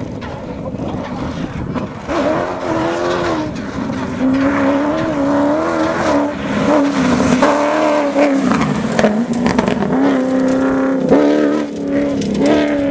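Cross-country rally car engine revving hard on a gravel stage. Its pitch climbs and drops back again and again as it changes gear.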